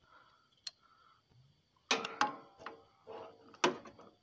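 Metal clicks and clinks from handling the Speedex 1632 gearbox cover plate and shift levers, with short ringing after the strikes. A faint click under a second in, a cluster of clinks about two seconds in, and the sharpest click about three and a half seconds in.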